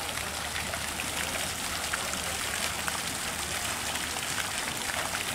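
Garden pond fountain jet spraying and splashing back into the pond: a steady hiss of falling water.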